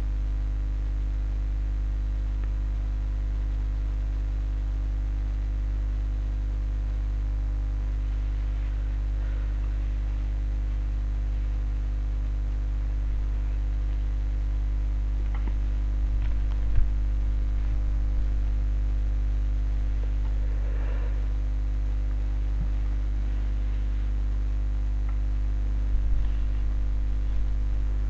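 Steady electrical mains hum with its overtones, with a few faint clicks about two-thirds of the way through and again near the end.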